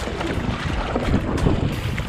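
Kayak paddle strokes splashing through the sea water, with wind buffeting the microphone.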